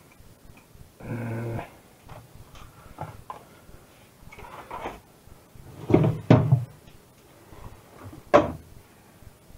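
Kitchen handling: a brief low hum about a second in, scattered small knocks, then several loud knocks and thuds, like cupboard or fridge doors and containers being set down, about six seconds in and again near the end.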